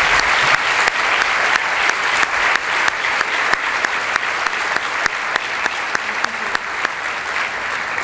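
Audience applauding: a dense clatter of many hands clapping that slowly grows a little quieter.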